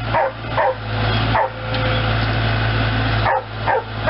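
A dog barking in short bursts, several in the first second and a half and more near the end, over the steady running of a New Holland LS150 skid steer loader's engine.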